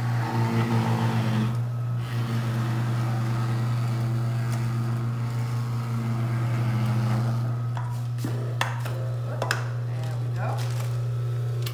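Champion Juicer's electric motor running with a steady low hum while frozen bananas are pushed through it to make banana ice cream, then cutting off at the end. A few light knocks come near the end.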